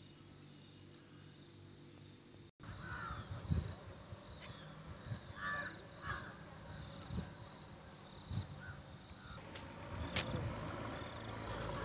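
Crows cawing several times in short calls, over low rumble and knocks on the microphone. The first couple of seconds hold only a faint steady hum, which breaks off abruptly before the calls begin.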